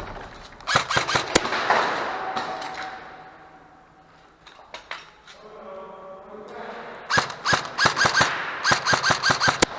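Airsoft guns firing: a few sharp shots about a second in, then a quick run of about ten shots, roughly four a second, near the end.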